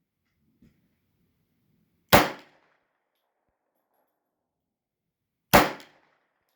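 Two pistol shots from a Tokarev TT-33 firing 7.62×25mm rounds, each a sharp crack with a short ringing decay, about three and a half seconds apart.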